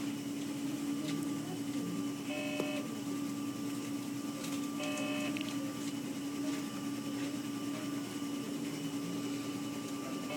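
Steady hum of neonatal intensive care equipment, holding one low tone and a fainter higher tone. Two short electronic beeps from a medical monitor sound, about two and a half and five seconds in.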